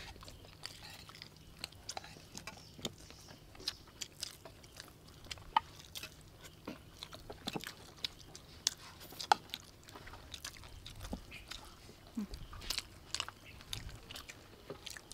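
People chewing rice and chicken close to the microphone: irregular wet smacks and sharp clicks from mouths and spoons.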